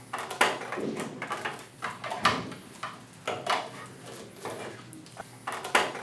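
Irregular clicks, knocks and short scrapes of a freeze dryer's LED display panel and its plastic bezel being pushed out of the mounting and handled.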